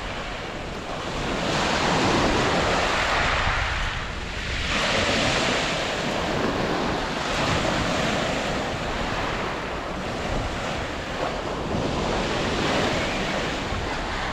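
Sea surf on a beach: waves breaking and washing in, swelling and easing every few seconds, with wind rumbling on the microphone.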